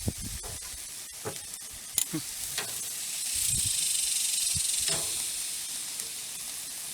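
Sauced chicken sizzling on a grill over direct heat as the barbecue sauce caramelizes, the hiss swelling louder for a second or two midway, with a few light clicks.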